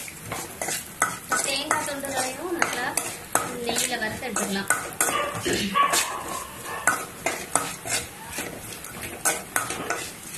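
A metal spoon scraping and clinking against an aluminium kadai while stirring coconut pieces frying in ghee: rapid, irregular scrapes and knocks.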